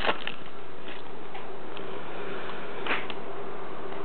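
Basketball trading cards and their foil pack being handled: a few light rustles and clicks, near the start and around three seconds in, over a steady background hiss.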